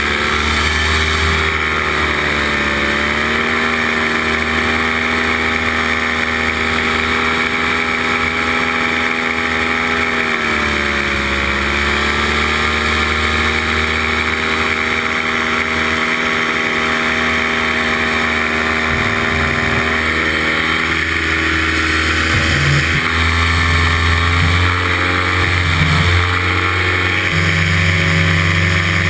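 Paramotor engine and propeller running steadily at cruise in flight, its pitch dipping briefly twice, about three seconds in and again around eleven seconds, as the throttle is eased and opened again.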